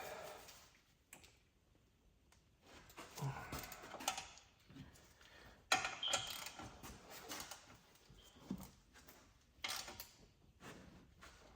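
Hand tools and metal parts being handled: scattered clinks, knocks and scrapes at irregular intervals, with a sharper knock about halfway through.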